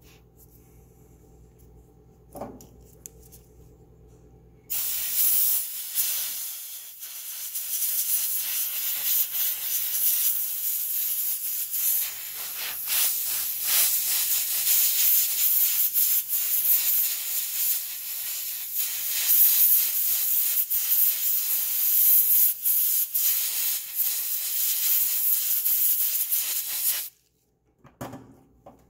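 Compressed-air blow gun hissing as it blows excess water off a skull mounted on a resin rod. It starts suddenly about five seconds in, wavers in strength as the air is moved over the piece, and cuts off sharply near the end.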